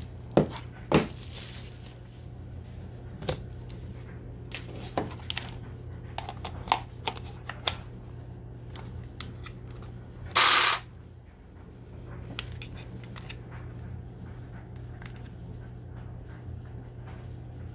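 Hard plastic clicks and knocks as a cordless tool's battery pack is handled and fitted onto the trimmer, over a low steady hum. About ten seconds in there is one louder half-second scraping rush, likely the pack sliding onto its mount.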